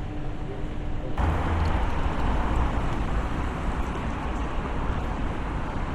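City street ambience with traffic noise. About a second in, a steady low hum gives way abruptly to a fuller, louder wash of street noise.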